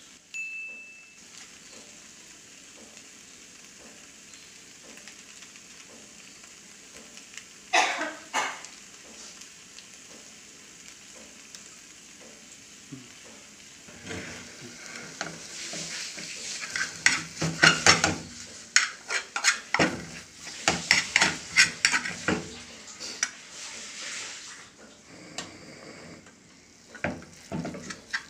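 Tuna sisig sizzling in a frying pan while a metal utensil stirs it, scraping against the pan in many quick strokes from about halfway in; the mixture is being stirred as mayonnaise is folded in. There is a brief louder clatter about eight seconds in.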